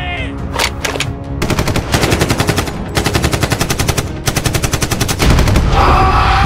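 Machine-gun sound effect: rapid automatic fire in three quick bursts, about ten shots a second. It gives way to a loud, rumbling explosion sound effect about five seconds in.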